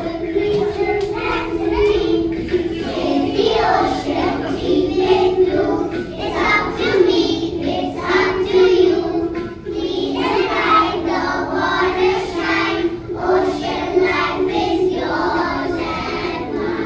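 A group of young children singing a song together in unison over a backing track.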